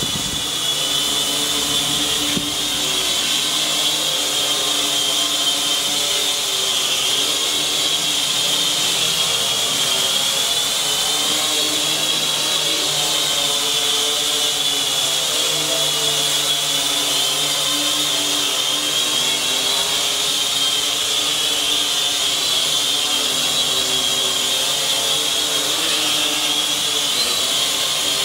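Cheerson CX-33S tricopter's six motors and propellers (three pairs, one above and one below each arm) whining steadily as it hovers, the pitch wavering slightly as it holds its position.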